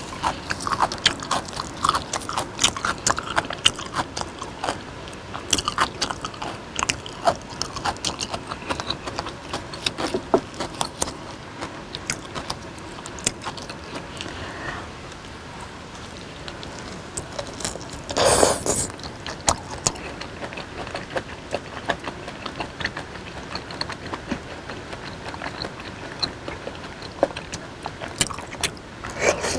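Close-miked chewing of raw beef slices dipped in chili sauce: wet, sticky mouth sounds and irregular smacks and clicks, with one louder half-second burst about two-thirds of the way through.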